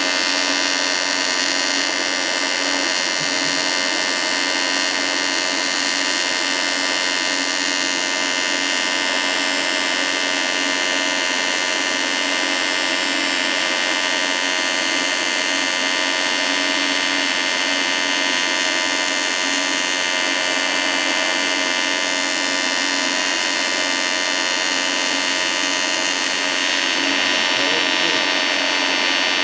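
A steady electrical buzz with many overtones, unchanging throughout.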